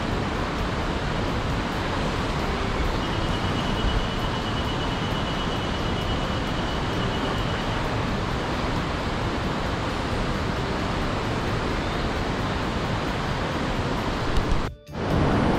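Steady rush of a rocky mountain stream's water flowing through a pool and over rocks, an even noise that cuts out briefly near the end.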